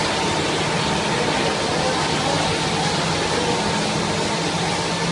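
Circular knitting machines running: a steady, dense mechanical noise with a faint constant hum underneath.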